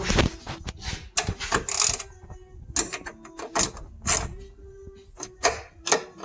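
A nut being tightened on a trunk strut bracket with a hand tool: a run of irregular metallic clicks and knocks, some ringing briefly.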